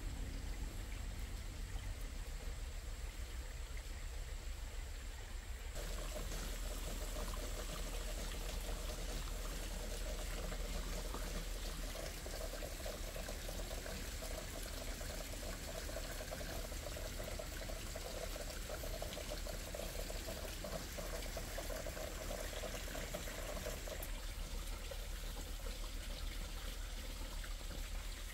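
Water running and trickling, heavier from about six seconds in until a few seconds before the end.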